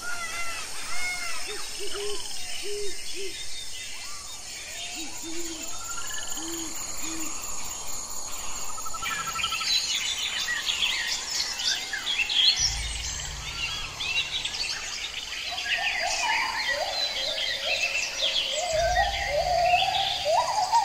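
Several wild birds chirping and singing, their calls overlapping and growing busier about halfway through. A brief low rumble comes twice in the second half.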